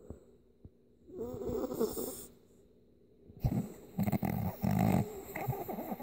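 Miniature pinscher snoring in its sleep: one snoring breath about a second in, then a longer, louder spell of snoring from about three and a half seconds.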